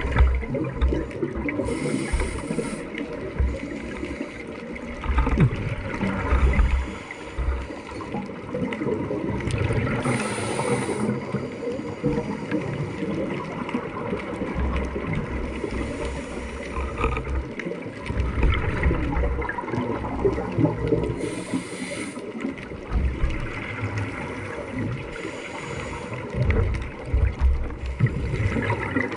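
Underwater sound of a scuba diver breathing through a regulator: exhaled bubbles burst and gurgle about five times, several seconds apart, over a steady low rumble of water.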